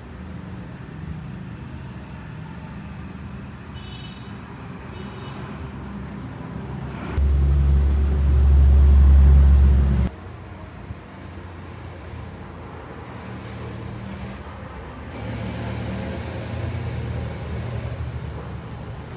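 Steady low traffic rumble. A much louder low rumble starts about seven seconds in and cuts off suddenly about three seconds later. Two brief high chirps come around four and five seconds in.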